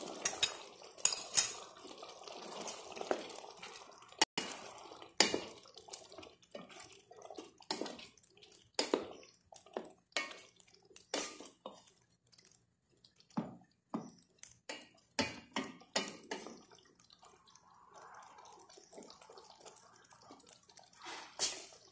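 Cooked white beans slid and scraped from a plastic bowl into a pot of wet stew, then a wooden spoon stirring the thick stew with short, irregular knocks against the sides of the stainless steel pot, one or two a second.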